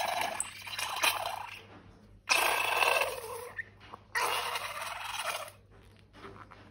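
Slime squelching and crackling as it is squeezed out, in repeated bursts of about a second each that start abruptly and fade away.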